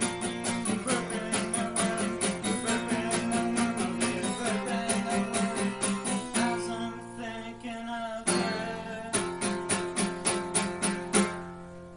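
Music: an acoustic guitar strummed in a steady rhythm, about four strums a second. The strumming breaks off for a couple of seconds midway, with notes left ringing, then picks up again and fades near the end.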